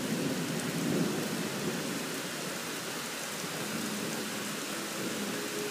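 Heavy rain pouring down steadily in a dense hiss, a downpour of nearly an inch an hour.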